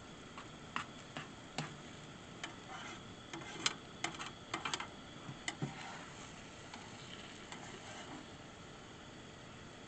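Irregular light clicks and taps, thickest around the middle, over a faint steady hiss.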